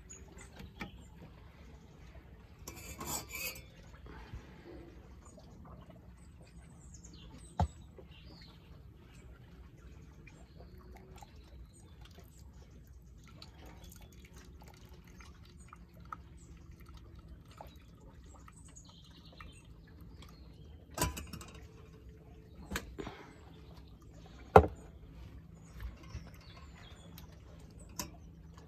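Hot water poured from a kettle into drip-bag coffee in an enamel mug, with a few sharp clinks of the metal kettle and mugs against the stainless stove top, the loudest about three quarters of the way through.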